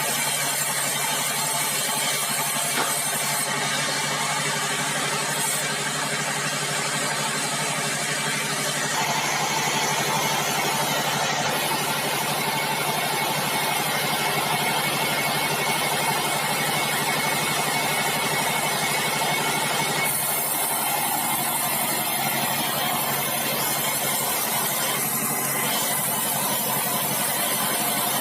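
Band sawmill running steadily, a constant engine-like hum with dense machine noise. The sound shifts abruptly about nine seconds in and again about twenty seconds in.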